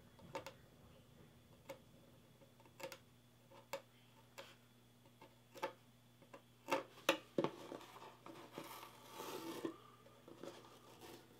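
Faint, irregular ticks and clicks of a hobby knife's blade cutting painter's tape against a wooden board, with a few louder clicks about seven seconds in. Near the end, a soft rubbing as fingers press the tape down onto the wood.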